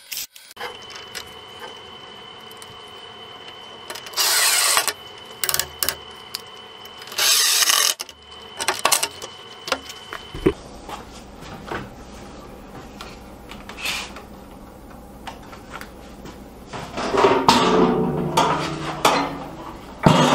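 A drill driving screws into hinges on a cedar lid, two runs of about a second each with small clicks between. Later a galvanized metal tub scrapes and knocks as it is shifted inside a wooden box.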